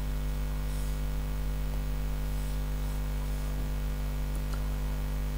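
Steady electrical mains hum with a buzz of evenly spaced overtones and faint hiss, picked up on the recording.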